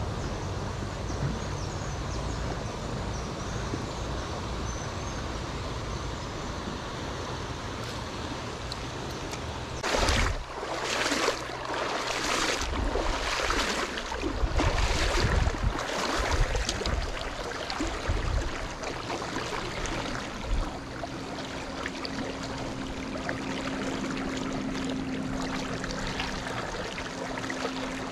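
River water rushing steadily. About ten seconds in comes a run of louder rushing surges, roughly one a second for several seconds. A faint steady hum comes in past the middle.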